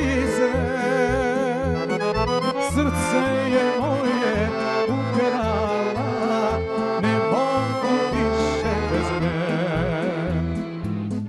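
Serbian folk band playing an instrumental passage, the accordion carrying an ornamented melody over violins and a steady drum and bass beat.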